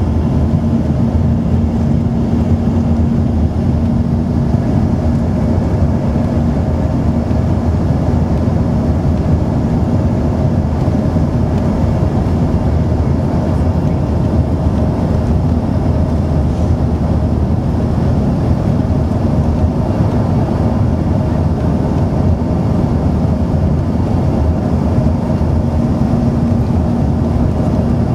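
Aircraft engines droning steadily, heard from inside the passenger cabin. A low hum runs through the noise, fades midway and comes back near the end.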